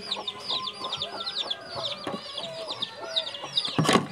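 Chickens in a coop: a brood of chicks peeping rapidly and continuously in short high calls, with hens clucking lower underneath. A brief clatter just before the end.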